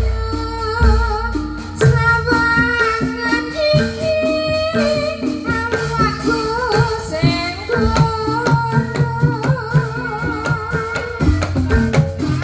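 Traditional Javanese barongan accompaniment music: a wavering melody line over drums and struck tuned percussion at a steady beat.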